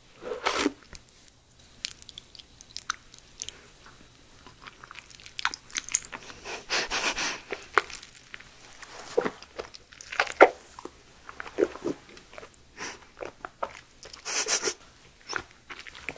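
Close-miked eating sounds of raw aloe vera: biting into the leaf's cut end and chewing and sucking the slippery clear gel, in irregular bites and wet mouthfuls, with longer, louder ones just after the start, around the middle and near the end.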